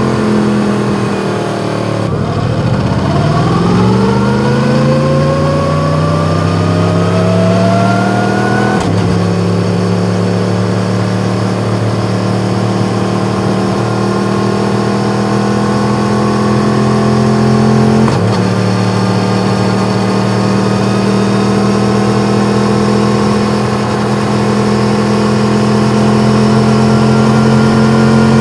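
Yamaha MT-10's crossplane inline-four running through an Akrapovič exhaust under way. Its note dips about two seconds in, then climbs steadily for about six seconds as the bike accelerates and breaks off sharply, as on a gear change. After that it holds a steady note at cruising revs, with one more short break about two-thirds of the way through.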